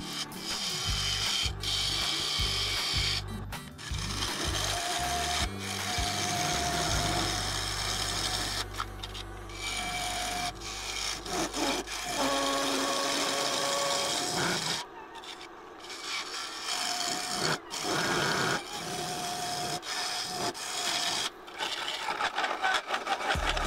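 Bowl gouge cutting the outside of a spinning claret ash bowl blank on a wood lathe: a rough, hissing shear that breaks off briefly many times as the tool is lifted and set back on the wood.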